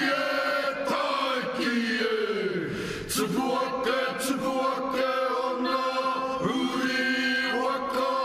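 A group of men chanting a Māori haka introduction, with falling vocal slides in the first few seconds, then long held notes.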